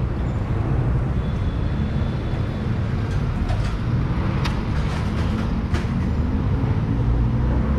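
Steady low rumble of street traffic, with a few faint clicks around the middle.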